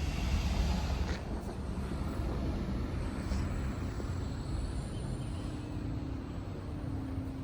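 Outdoor ambience: a steady low rumble, a little louder in the first second, with a faint steady hum joining in about halfway through.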